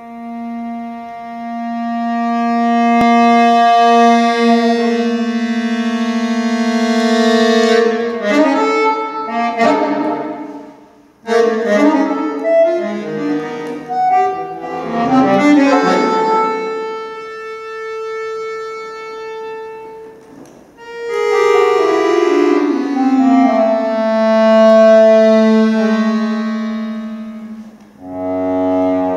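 Solo accordion playing contemporary concert music: a held chord swells up and sustains, breaks into quick flurries of notes with an abrupt cut-off, then a falling line of notes settles into another long held chord.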